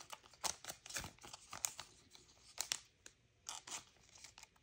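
Plastic card sleeve and trading card being handled, giving a string of short, faint crinkles and rustles as the card is slid into the sleeve.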